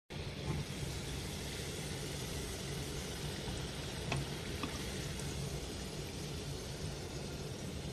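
Hot oil sizzling steadily as kibbeh deep-fry in a pot, with a couple of light clicks about four seconds in.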